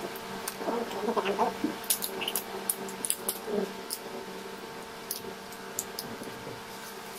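Small clicks and crackles of cooked shrimp shells being cracked and peeled by hand, scattered mostly through the middle, over a steady low hum. A short voice-like sound comes about a second in.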